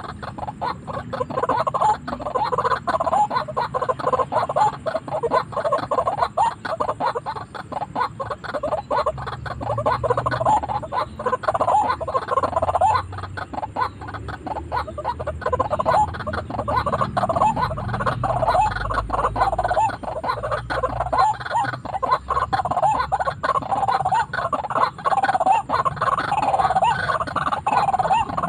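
White-breasted waterhens calling without a break, a loud run of rapidly repeated throaty notes, the bird's 'ruak-ruak' call.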